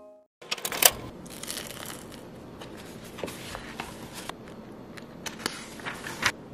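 Pages of a paperback book being handled and turned: paper rustling and swishing, with scattered sharp little clicks and a crisp loud one about a second in.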